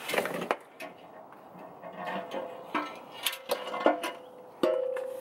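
Metal knocks and clinks, about half a dozen, several left ringing with a clear tone. The longest ring comes near the end. It is the cast-aluminium oil pan assembly of a Jeep Wrangler JK being worked loose and lowered from under the engine.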